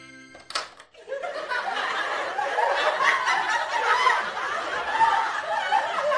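Sitcom laugh track: a studio audience laughing as a crowd, starting about a second in after a short click.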